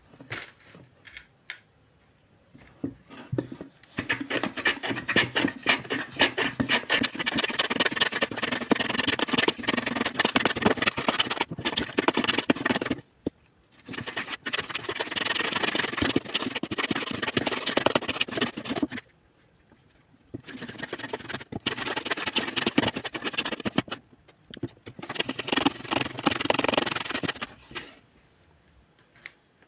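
A frozen block of coconut-milk ice-cream mix being scraped quickly back and forth over the metal blade of a wooden hand grater, in several runs of fast strokes separated by brief pauses.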